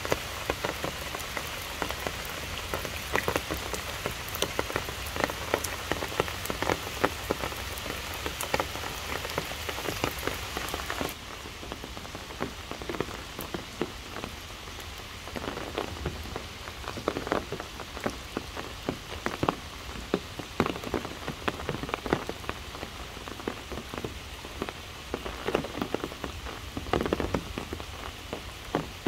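Steady rain falling through trees onto wet ground and puddles, with many individual drops striking close by. About eleven seconds in it changes abruptly to a quieter, duller patter.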